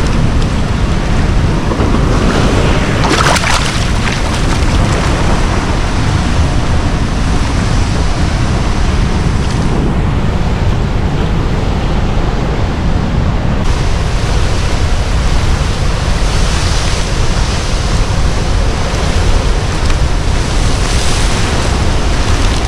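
Flood-swollen river below a dam, its water rushing and churning steadily.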